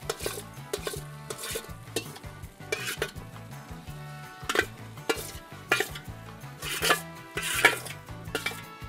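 A spoon scraping and knocking against the inside of a stainless steel mixing bowl as chicken pot pie filling is scooped out into a metal baking pan: irregular scrapes and clinks, several sharper knocks in the second half.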